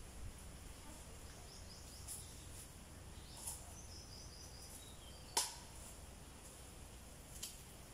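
Faint outdoor background with a few short, high bird chirps and several sharp clicks. The loudest click comes about five and a half seconds in.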